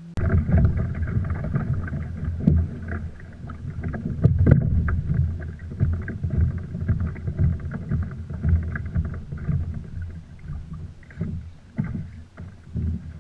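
Fishing kayak moving on the water, with water sloshing and slapping against the hull in an uneven low rumble and a few sharp knocks.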